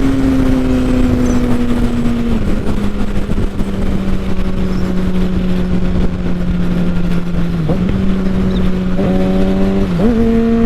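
Kawasaki 636 sport bike's inline-four engine running at steady revs under wind rush. Its pitch drops about two seconds in, holds, then rises in two quick steps near the end.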